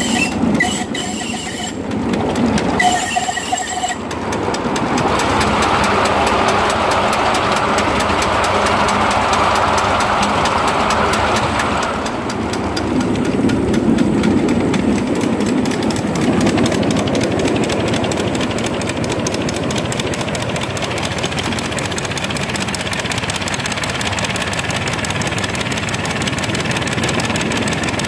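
Miniature steam locomotive running, heard from the footplate: a fast, steady rhythm of exhaust beats and wheels on the rails. A few short high tones sound in the first few seconds, and the sound grows louder for several seconds as the engine runs through a tunnel.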